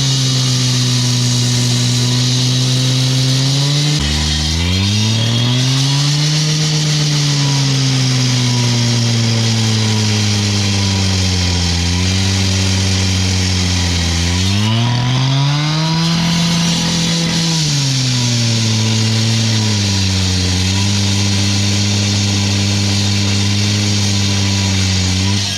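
Gas-powered cut-off saw (brick saw) running while cutting concrete, its engine pitch dipping and climbing again a few seconds in and again past the middle, then holding steady.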